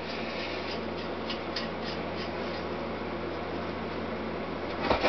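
Small steel bolts being handled and fitted into an aluminium engine block, making a few faint light clicks, with a louder brief scrape or clatter about five seconds in. A steady low hum runs underneath.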